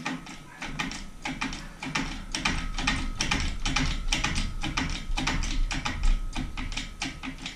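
Rapid, uneven clicking and tapping over a low rumble as the Mercury Thunderbolt 500's crankshaft, with the pistons hanging on their rods, is lowered on an engine lift into the cylinder block.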